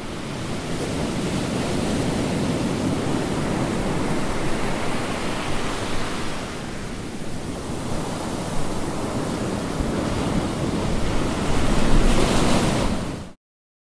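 Sea waves breaking as a continuous surf roar, swelling twice and cutting off suddenly near the end.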